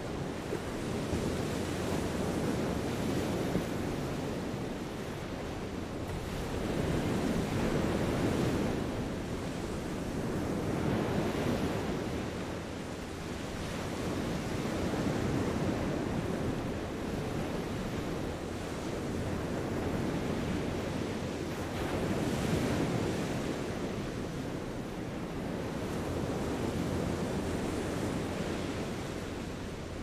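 Small sea waves washing onto a sandy beach, the surf swelling and easing every few seconds.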